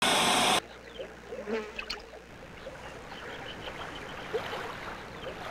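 A loud half-second burst of TV static, then a quiet hiss with scattered faint chirps and squeaks.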